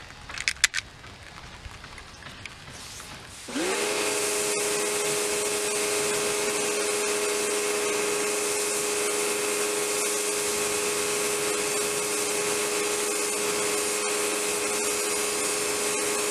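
A few sharp clicks. Then, about three and a half seconds in, the Karcher K1700 Cube electric pressure washer's motor and pump kick on as the spray gun's trigger is pulled. The motor spins up in a fraction of a second to a steady hum, under the loud hiss of the high-pressure rinse jet, and cuts off at the end.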